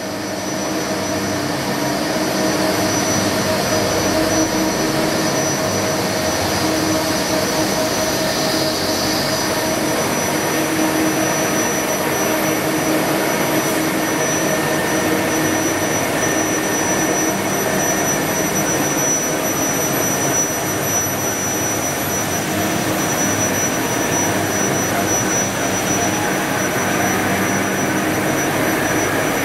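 Edale FL-3 narrow-web flexo label press running, a steady mechanical whirr with a high, constant whine from its drives and UV-curing and hot-air dryer units.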